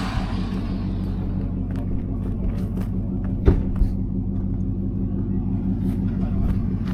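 A vehicle engine idling steadily with a low rumble, just after being started, with one sharp click about three and a half seconds in.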